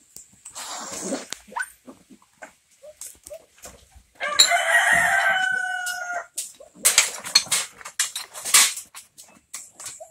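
A rooster crows once, a pitched call of about two seconds starting about four seconds in. Short scuffling and knocking noises come before and after it.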